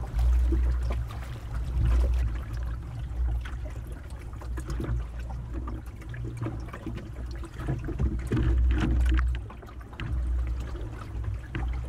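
Wind buffeting the microphone in gusts, over water splashing and trickling along the hull of a small open sailing boat under way.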